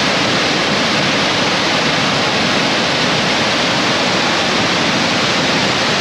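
Muddy floodwater of a flash-flooding stream rushing and cascading over an eroded bank, a loud, steady rush of water.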